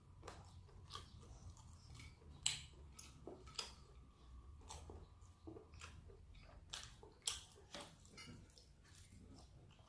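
Close-up eating sounds of a person chewing rice and fried chicken with soft, irregular mouth clicks and smacks. A few are louder, about two and a half seconds in and again near seven seconds.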